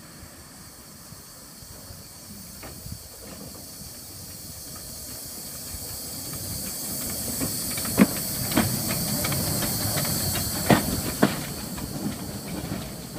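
Small steam tank locomotive drawing slowly closer, its steam hiss growing louder, with several sharp metallic clanks in the second half.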